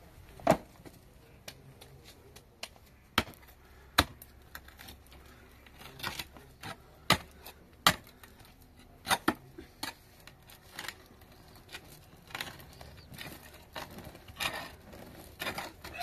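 Pickaxe striking the ground while digging a hole: about a dozen sharp, separate blows at an uneven pace, one to two seconds apart.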